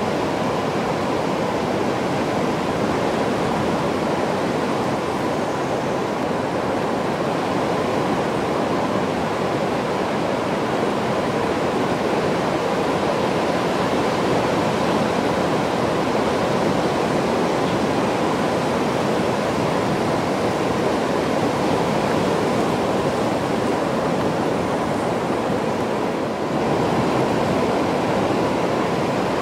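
Steady rushing noise, like running water, with a faint steady tone running through it; it dips for a moment near the end.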